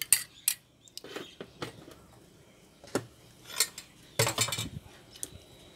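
Irregular sharp clinks and knocks of cutlery and dishes being handled, with a cluster of louder knocks a little after four seconds in.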